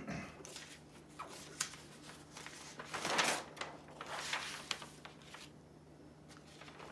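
Large sheets of drawing paper and brown interleaving paper in an artist's portfolio being turned over by hand: a series of rustling swishes, the loudest about three seconds in, over a faint steady low hum.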